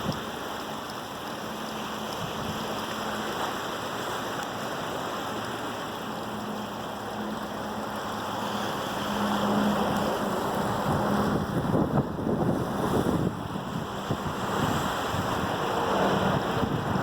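Rough sea: waves rushing and breaking with wind buffeting the microphone, growing louder with irregular crashes and splashes from a little past halfway.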